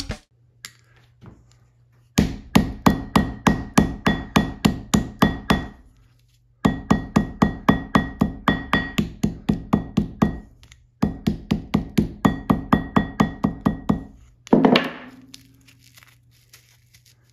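Ball peen hammer rapidly pounding a paint brush's dried, paint-hardened bristles against a steel anvil to break the paint loose. The blows come in three runs of about four a second, with a faint ring from the anvil, followed by one heavier knock near the end.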